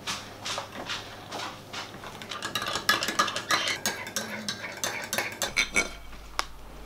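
Crockery and cutlery clinking: a teaspoon rattling against a mug and plates and cutlery being handled, in a busy run of quick clinks that thins out near the end.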